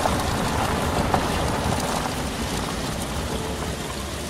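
Rushing engine-and-wind noise of an ultralight aircraft rolling past over grass and moving away, slowly fading.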